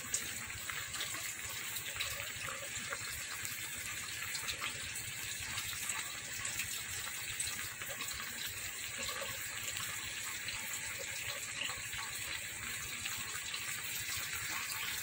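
Coconut-milk sauce simmering in a pan of tilapia and pechay, a steady bubbling hiss with faint crackles. The dish is fully cooked.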